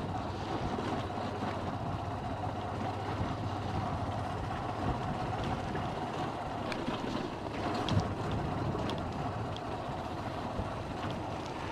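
Motorcycle ridden slowly over a dirt track: steady engine hum with road and wind noise. A short knock about eight seconds in.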